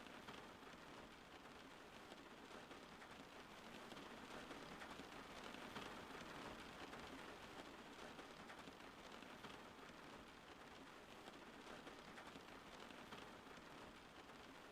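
Faint steady rain, an even hiss of falling drops with no thunder.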